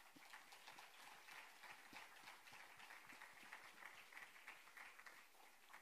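Faint audience applause: many quick overlapping claps.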